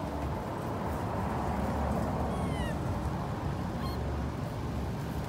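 Steady low background rumble, with a short high-pitched gliding squeak about two seconds in and a brief high chirp near four seconds.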